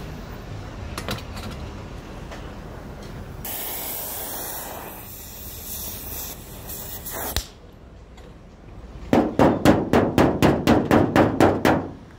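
A steady hiss for about four seconds midway, then a quick run of about a dozen sharp taps on a car's body panel, roughly five a second, near the end.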